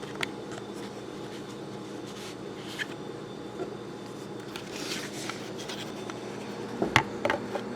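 Light handling noises: a few small clicks and scrapes over a steady low room hum, with a sharper knock and a couple of clicks near the end.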